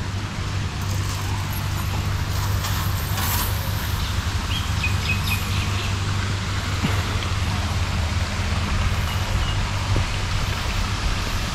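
Birds chirping in a walk-through aviary, a few faint high chirps over a steady low hum and an even hiss of background noise.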